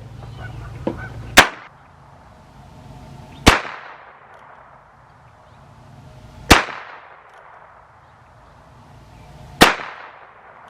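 Heritage Rough Rider .22 single-action revolver firing four shots, two to three seconds apart, each a sharp crack with a short trailing echo. The spacing follows the single action: the hammer must be cocked by hand before each shot.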